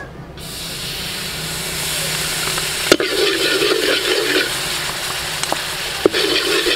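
Dark sauce poured into a hot steel wok, hissing and sizzling as it hits the bare metal, then stirred and scraped around with a long metal ladle. The ladle clacks sharply against the wok twice, about three and six seconds in.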